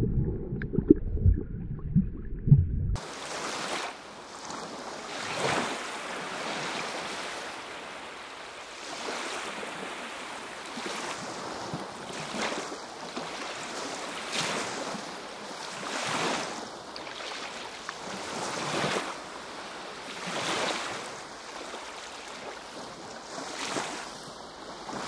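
Muffled underwater sound with a few dull knocks for about the first three seconds, then small sea waves washing in, swelling and easing every couple of seconds.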